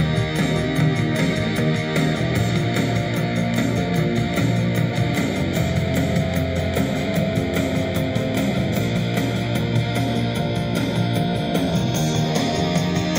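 Guitar music played from an MP3 player through a handmade EL84/ECC83 valve amplifier and its speaker, running steadily without a break.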